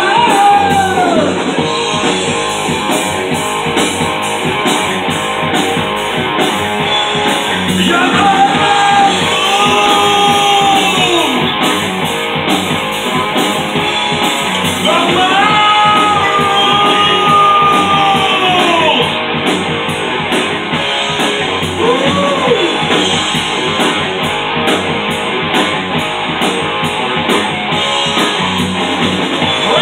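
Rock music from a band with guitar, playing steadily and loudly, with long held melody notes over the accompaniment.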